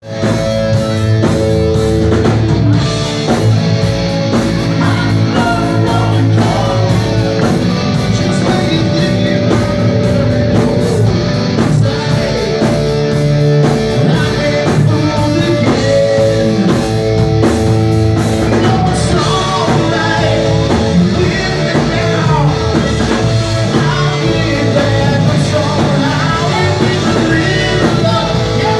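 Rock music with electric guitar, drums and singing, playing steadily.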